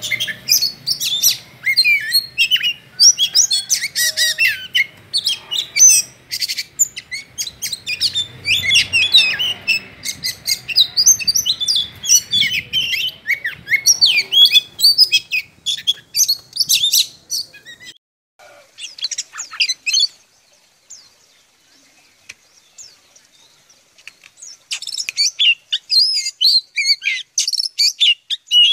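Sumatran oriental magpie-robins (kacer) singing in a cage: a fast, varied run of loud whistles, chirps and trills. The song breaks off about two-thirds of the way through, goes almost quiet for a few seconds, and then starts again near the end.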